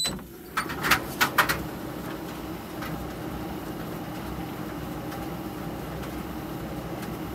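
Compact electric tumble dryer running: a steady motor-and-fan hum with a low tone. A few sharp knocks come in the first second and a half.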